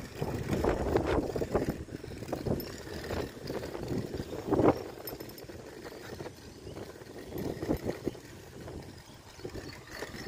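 Wind buffeting the microphone of a camera carried on a moving bicycle, in irregular low gusts, with a stronger gust about halfway through.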